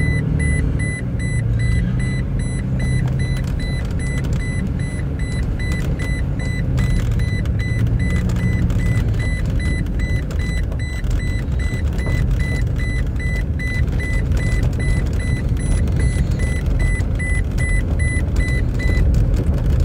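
Riding inside a moving vehicle: steady engine and road rumble, with a seatbelt warning chime beeping over and over for an unfastened seatbelt. The chime stops about a second before the end.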